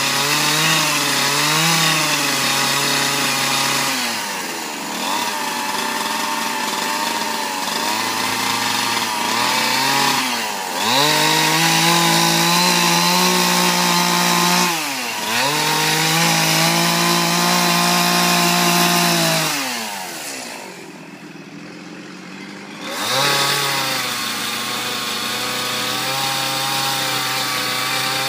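Chainsaw carving wood, the engine revving up and dropping back again and again as it cuts. About three quarters of the way through it falls to a quieter idle for a couple of seconds, then revs up again.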